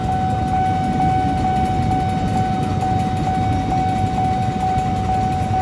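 Level-crossing warning alarm sounding a steady high tone with faint regular pulses about twice a second. Under it is the low rumble of an ex-Tokyo Metro 6000-series electric commuter train running through the crossing, and of motorcycles waiting at the barrier.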